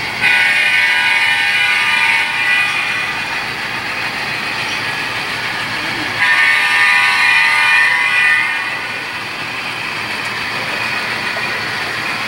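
Horn of a sound-equipped HO-scale model diesel locomotive, played through its small onboard speaker: two long chord blasts about six seconds apart, over a steady background rumble.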